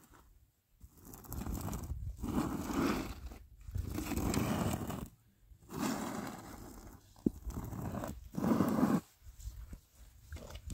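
Long-handled squeegee dragged through liquid tar over rough concrete: a rasping scrape with each push, about five strokes of a second or so each, the loudest near the end. A single sharp tap sounds about seven seconds in.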